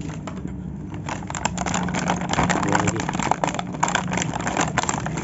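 Rigid plastic toy packaging crackling and rustling in rapid, dense clicks as the box is handled and opened, starting about a second in. A steady low hum runs underneath.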